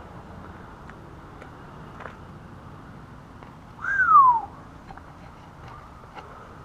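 A person whistling once, about four seconds in: a short whistle that rises briefly and then glides down in pitch, loud and close to the microphone, over faint steady background noise.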